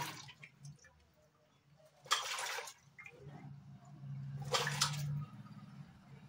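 Water splashing and sloshing in a pressure cooker pot as lotus stems and potatoes are washed by hand, in three short bursts about two seconds apart. A low steady hum runs underneath.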